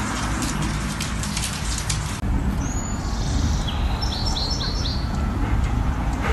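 Rapid clicking for about two seconds, then a small bird chirping over a steady low rumble: one high whistle, then a quick run of four falling chirps about halfway through.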